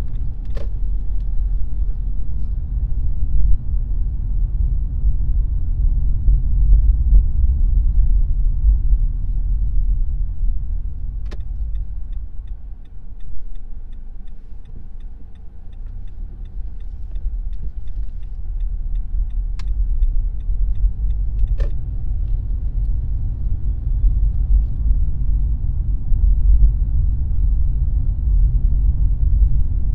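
Car driving: a steady low rumble of engine and road noise that eases off for a few seconds midway, then builds again. A light, regular ticking, about three a second, runs for about ten seconds through the middle, with a few sharp clicks.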